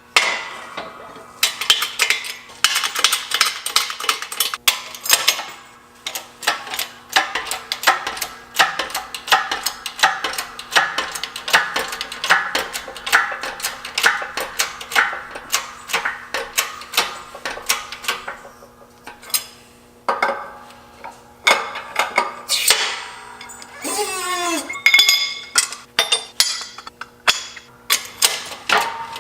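A rapid, irregular run of sharp metallic clinks and knocks, several a second, over a steady low hum.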